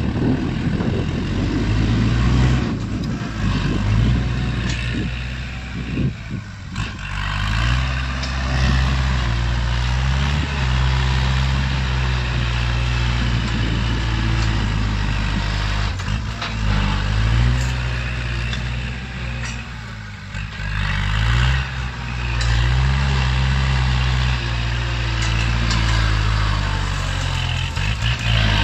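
Kubota compact tractor's diesel engine working under load while its front blade pushes dirt, the engine note rising and falling as it works.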